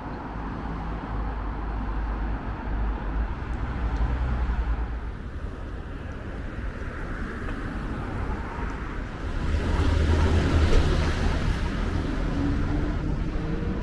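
City street traffic: a steady low rumble of engines and tyres, with a vehicle passing close and loud about ten seconds in.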